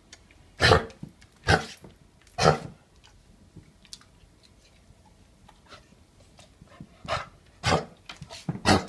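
Dog coughing in harsh, forceful bouts: three coughs about a second apart, a pause, then another run of coughs near the end. This is the classic cough of kennel cough (infectious tracheobronchitis).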